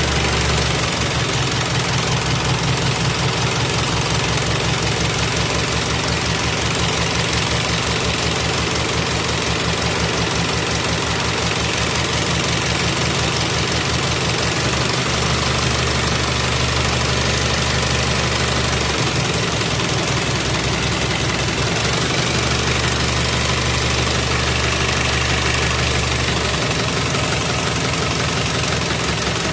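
Isuzu 4HF1 four-cylinder diesel engine being started after a fuel pump replacement, running unevenly. Stretches of rapid knocking pulses alternate with steadier running. It is slow to catch because air is still in the fuel system.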